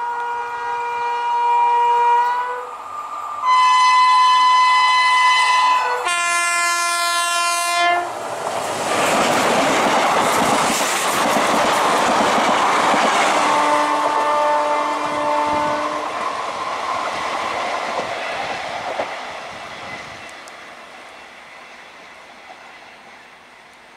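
Electric train horns sounding three long blasts of different pitch, then a WAP-5-hauled OMS trial train rushing past at speed, wheels clattering over the rail joints, with one more horn blast midway. The noise fades as the train draws away.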